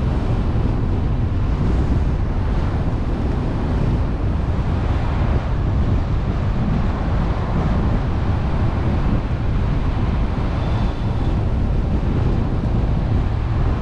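Steady road and wind noise from a car driving at speed, with heavy wind rumble on the microphone.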